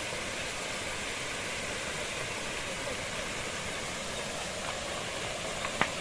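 Waterfall rushing: a steady, even hiss of falling water, with a single sharp click shortly before the end.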